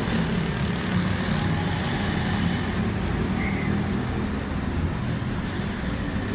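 Steady low rumble of city road traffic, with the deepest part of the rumble easing off about five seconds in.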